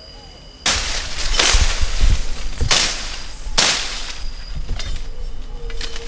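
Brush being slashed through, likely with a machete: loud swishing strokes about a second apart, starting about half a second in, with continuous crackling and rustling of stems and leaves between.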